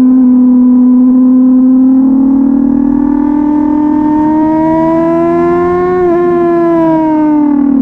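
1999 Suzuki GSX-R 750's inline-four engine running at high revs under throttle. Its pitch climbs slowly through the middle, then falls over the last couple of seconds.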